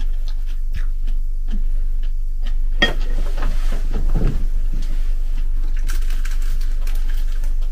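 A fork clicking lightly against a bowl, then a sharp knock and scuffling as someone turns and gets up from a wooden chair, and a dry rustle near the end as a packet is taken from a shelf, all over a steady low hum.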